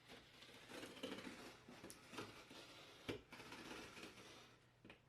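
Faint scratchy rasps of an X-Acto knife slicing the packing tape and cardboard of a shipping box, with a sharp knock about three seconds in.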